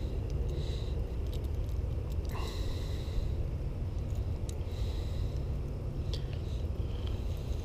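Close handling noise as a hook is worked out of a caught bass's mouth: scattered clicks and knocks over a steady low rumble. A short high buzz comes back every couple of seconds.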